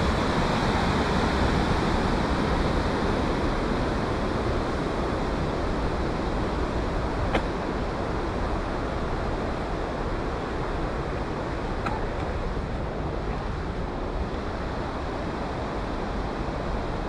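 Steady outdoor noise of wind buffeting the microphone over a background of distant road traffic, with two short clicks about seven and twelve seconds in.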